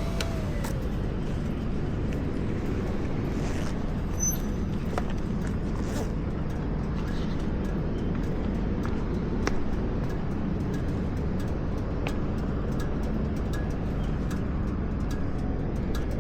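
Honda CBR650R's inline-four engine running on its stock exhaust. Its note drops in pitch just after the start, then holds steady.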